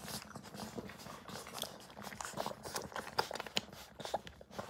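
Golden retriever puppies suckling at their mother's teats: a run of faint, irregular little clicks and smacks.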